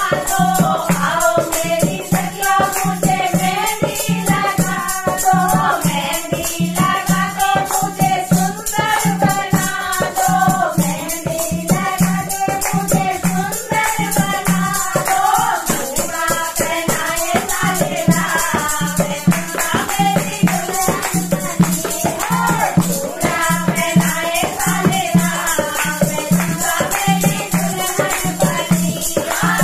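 A group of women singing a Hindi devotional bhajan together, accompanied by a dholak drum, hand-held rattles shaken in rhythm and hand clapping.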